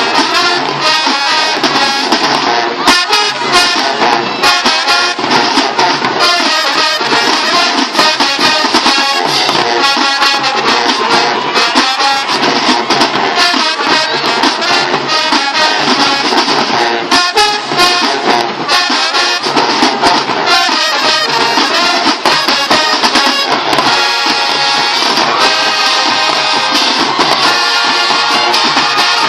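High school marching band playing: brass section over a steady drum beat.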